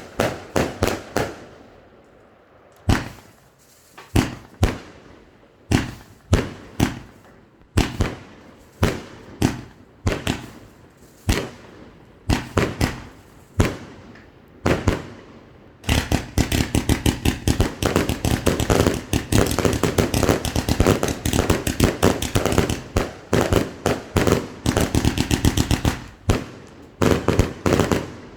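Funke fireworks battery firing its shots: separate sharp bangs, often in pairs or threes, every half second or so for about fifteen seconds, then a dense rapid volley of bangs for about ten seconds, and a few single bangs near the end.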